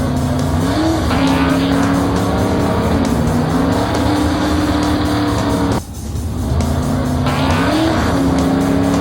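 Cartoon motor-vehicle engine sound effect: the engine revs up about a second in and runs steadily, cuts out sharply near six seconds, then revs up and runs again.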